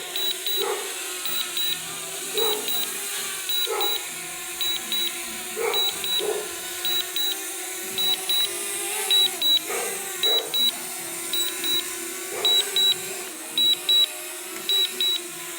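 Pairs of short, high beeps repeating about once a second: a DJI Mavic Mini low-battery warning, sounding while the drone tries to land on a low battery. Under them runs a steady hum that wavers a little in pitch.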